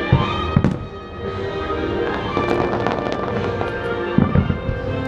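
Fireworks going off: sharp booms near the start, about half a second in and around four seconds in, with a quick run of crackles around two and a half seconds, over the fireworks show's music.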